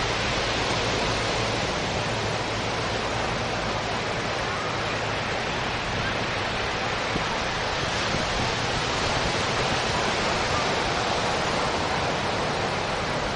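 Ocean surf breaking along the beach: a steady, even wash of noise.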